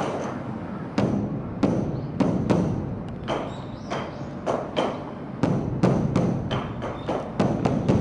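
Beopgo, the large Korean Buddhist dharma drum, struck with drumsticks in an uneven rhythm of sharp beats, about two to three a second, some coming in quick runs. Each beat rings briefly.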